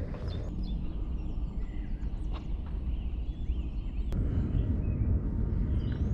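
Outdoor wind rumbling on the microphone, with a few faint high chirps. About four seconds in, the sound changes abruptly with a click, and the rumble gets louder.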